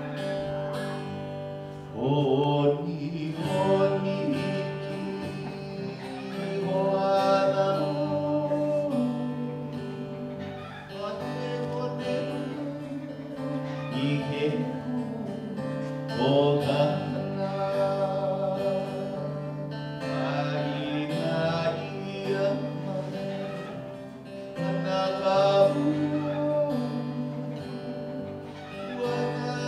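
Live acoustic guitar with a singer's voice: a song played on guitar, the singing coming in about two seconds in and going on in phrases.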